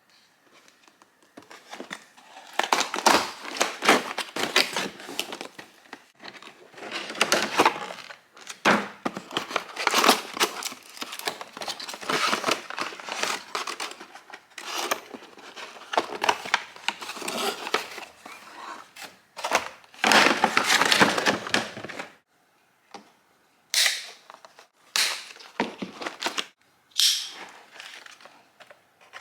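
Plastic and paper packaging crinkling and tearing in irregular bursts as a new tool is unwrapped, with a few sharper snaps near the end.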